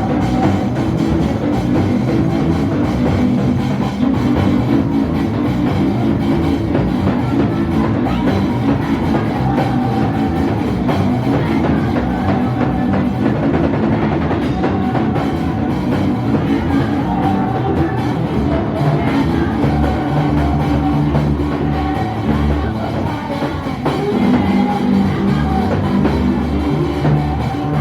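Loud, steady band music driven by a drum kit.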